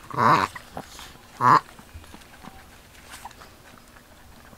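A Maltese dog barking twice, the second bark about a second after the first.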